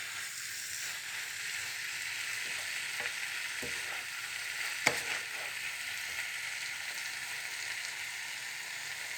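Cabbage stir-frying in a hot pan, giving a steady sizzling hiss. A few short knocks of a utensil against the pan come in the middle, the loudest about five seconds in.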